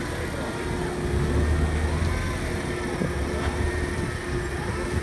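A vehicle engine running steadily over a constant hum; its low rumble swells about a second in and eases a couple of seconds later.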